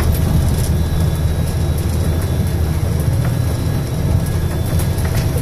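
Tour coach's engine and road noise heard from inside the cabin: a steady low rumble.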